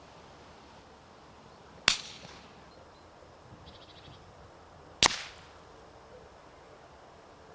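Two suppressed rifle shots about three seconds apart, each a sharp crack with a short tail.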